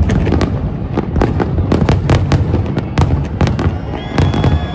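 Aerial fireworks bursting in quick succession: many sharp bangs and crackles over a continuous low rumble. A steady high tone comes in near the end.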